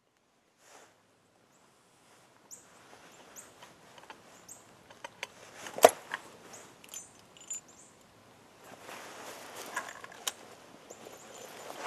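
Clicks and rustling from a break-action single-shot rifle being handled between shots, with one sharp metallic click about six seconds in, then soft rustling. Faint bird chirps sound in the background.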